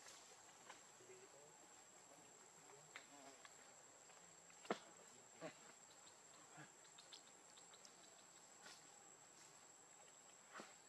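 Near silence with a faint, steady, high-pitched insect trill and scattered small clicks and taps. The sharpest click comes about four and a half seconds in.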